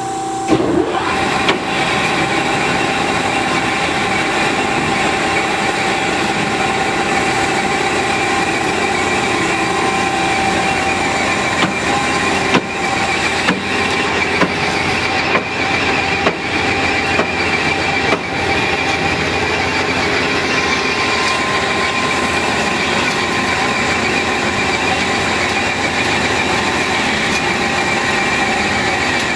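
HEM WF160LM-DC horizontal band saw running under power: a loud, steady mechanical whir with a few steady tones, and several short knocks in the middle.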